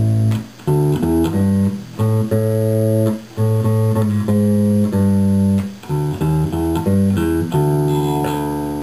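Electric bass played clean through a home-built 50–60 watt tube amplifier into a 15-inch speaker cabinet: a run of separate plucked notes, with a longer note held and dying away near the end.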